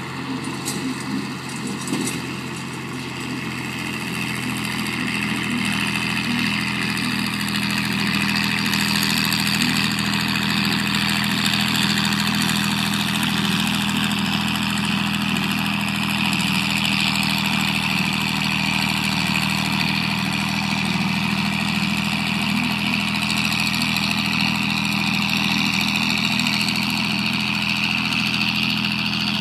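John Deere 4020 tractor engine running steadily while it pulls an HX15 batwing rotary mower through pasture grass, with a steady high hiss over the engine drone. The sound grows louder over the first several seconds, then holds even.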